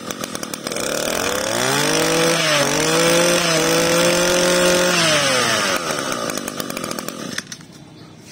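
Kioritz (Echo) SRM2320 brush cutter's 23cc two-stroke engine running. It is revved up about a second and a half in, held at high revs for about three seconds, then let back down to idle. It runs crisp and quick to pick up throttle, a sign of a healthy original engine.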